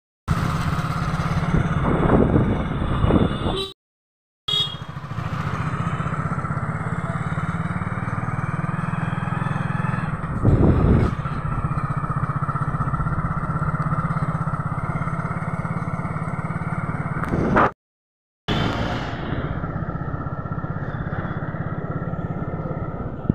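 Small vehicle engine running steadily while riding along a road, with road and wind noise. The sound drops out completely twice for under a second.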